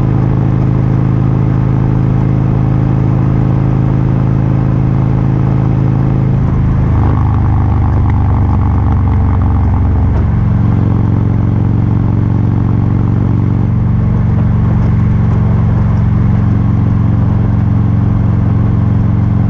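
Vehicle engine running steadily at road speed. Its note drops about seven seconds in and rises again about ten seconds in.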